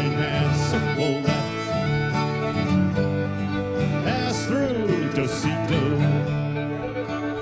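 Old-time string band playing a fiddle reel, with fiddle and guitar over a steady beat.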